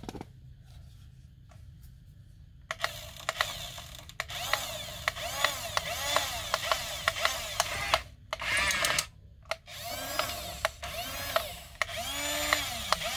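Small electric motors and plastic gearboxes of a toy RC tank whirring, spinning up and down in short runs as the remote's sticks are worked. It starts about two and a half seconds in and breaks off briefly twice near the end.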